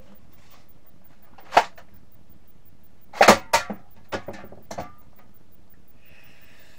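Nerf Demolisher 2-in-1 blaster: a single sharp snap about a second and a half in, then a quick cluster of loud knocks a couple of seconds later, trailing off into a few lighter clatters.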